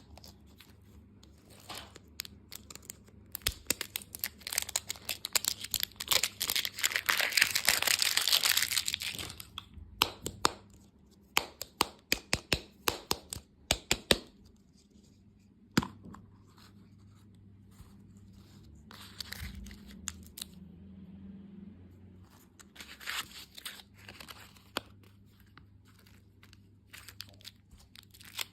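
Candy packaging being torn open and crinkled by hand: a long stretch of loud tearing and rustling in the first third, then a run of sharp crackles and clicks, then quieter, scattered handling sounds.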